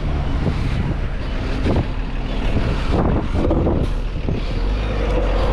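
City bus engine running close by, a steady low rumble.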